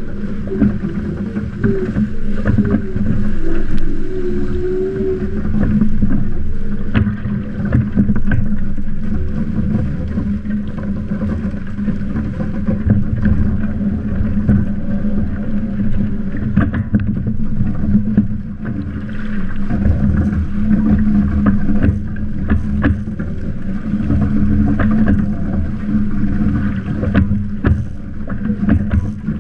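Windraider Rave trimaran under sail, water rushing and splashing past its hull, with a steady low hum and scattered short knocks and slaps. A wavering tone sounds over the first few seconds.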